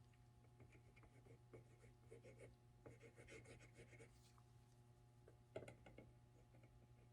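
Faint scratching and rubbing from hands working on plastic costume armor parts, over a low steady hum, with one light tap about five and a half seconds in.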